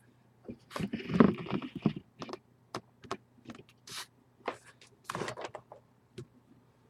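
A run of irregular clicks and taps with two short bursts of rustling, about a second in and again near five seconds, like small objects being handled on a desk.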